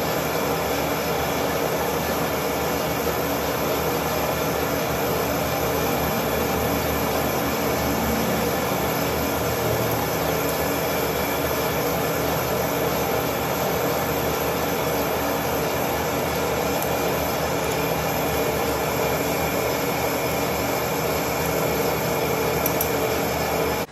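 Manual metal lathe running steadily: a constant mechanical drone with a few steady whining tones, stopping abruptly at the end.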